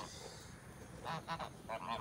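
Geese honking in short repeated calls: a quick run about a second in and another near the end.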